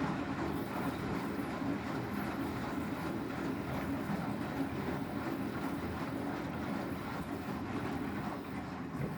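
Front-loading washing machine partway through a 60-degree cottons wash, its drum turning with water sloshing inside, a steady churning noise.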